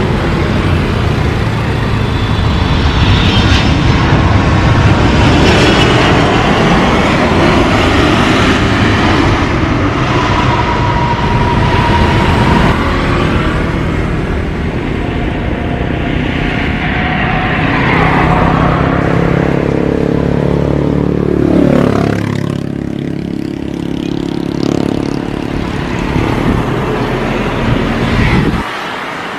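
Jet airliner engines roaring at close range: first a Boeing 777 twin-jet at takeoff power, then an Airbus A330 coming in to land. Whining engine tones fall in pitch about two-thirds of the way through, and the low rumble drops away suddenly near the end.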